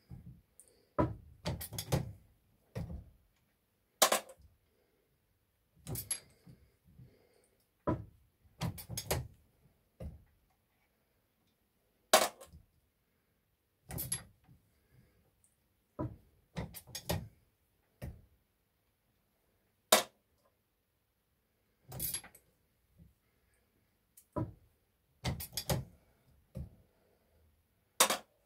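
Corbin swage press being worked by hand to swage .22 hollow point slugs. Sharp metallic clacks and knocks, singly or in short clusters, come every second or two with silence between, as the handle is pulled and the punches and die meet.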